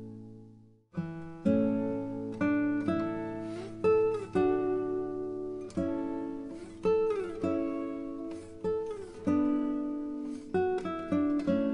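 Background music on plucked acoustic guitar: one phrase fades away and a new one starts about a second in, with single notes and chords ringing out and some sliding notes.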